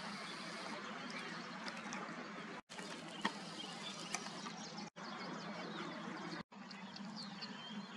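Many small birds chirping and calling over a steady background hiss. The sound cuts out briefly three times, about a third of the way in, just past halfway, and near three-quarters.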